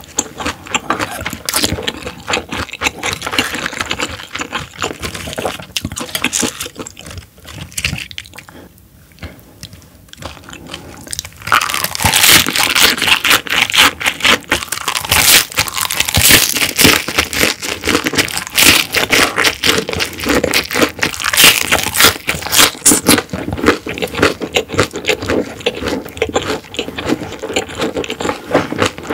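Close-miked chewing and crunching of a mouthful of food: dense crisp crackles and wet clicks. It eases off for a few seconds about a third of the way in, then turns loud and dense again.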